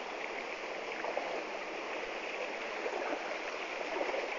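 Steady rush of running water in a mountain stream.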